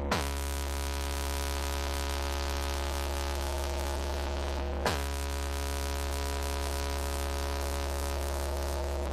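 Trailer-mounted car sound system playing a steady deep, humming drone. A quick downward-sweeping tone cuts through right at the start and again about five seconds in.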